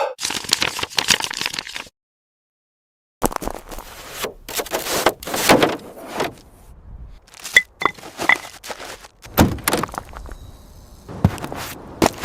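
Irregular knocks, clanks and scraping noises, broken by about a second of dead silence near the start.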